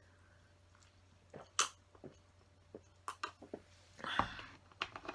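A person taking a quick drink: a few sharp clicks and knocks as the drink is handled, then louder mouth and swallowing sounds about four seconds in.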